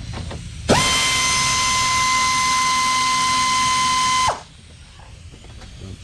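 Handheld power tool's motor spinning up, running with a loud steady whine for about three and a half seconds, then winding down, as it runs a fastener during the radiator job.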